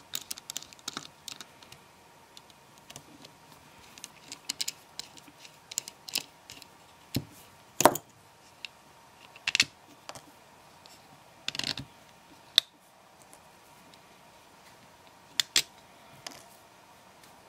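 Scattered small metal clicks and taps from a Torx screwdriver and tiny screws being backed out of a folding knife's handle and set down on the desk, with a sharper click about eight seconds in.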